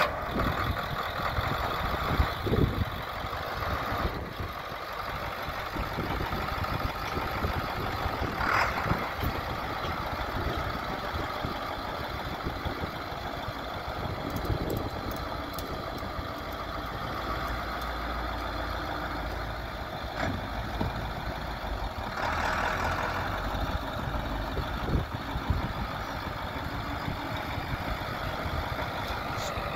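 1996 International 4700 service truck's T444E V8 turbo-diesel engine running as the truck is driven slowly, the engine note swelling briefly a couple of times.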